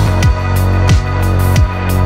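Electronic background music with a steady beat: deep kick drums that drop in pitch about every two-thirds of a second over a held bass line.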